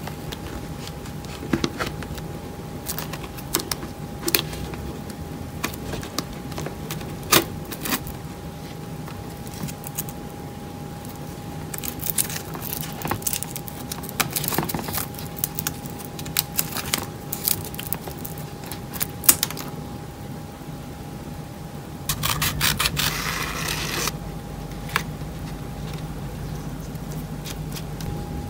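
Small handling sounds of making a milk-carton stilt: an awl pushing holes through duct-taped carton, then a cord being threaded through and knotted, heard as scattered clicks, scrapes and rustles. A longer rustle comes near the end.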